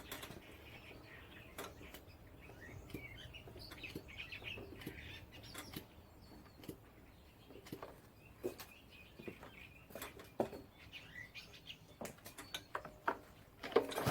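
Faint birds chirping on and off, with scattered light clicks and knocks.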